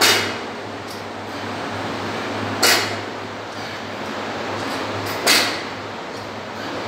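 A loaded 50 kg barbell with bumper plates hitting the rubber gym floor three times, about two and a half seconds apart, once per clean and jerk rep. Each landing is a sharp thud with a short tail, over a steady low hum.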